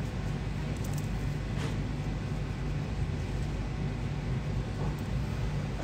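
Steady low background hum, with a few faint soft clicks about one and a half seconds in and near the end.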